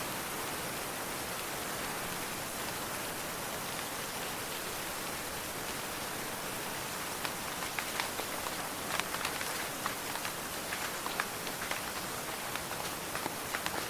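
Steady rainfall, an even hiss of rain, with individual close drops striking a surface in sharp ticks from about halfway through.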